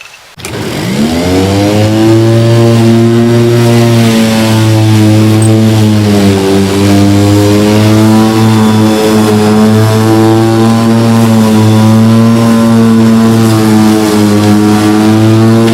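Petrol lawn mower engine starting and running: its pitch climbs as it comes up to speed within the first second or so, then holds a steady drone with slight wavering.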